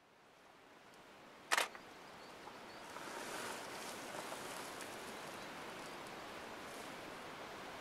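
A single photo-camera shutter click about a second and a half in, over a steady background hiss that fades in at the start.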